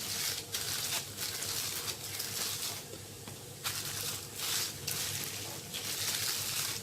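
Oatmeal bread dough being flattened and worked on a work surface: a series of soft swishing strokes, each about half a second to a second long.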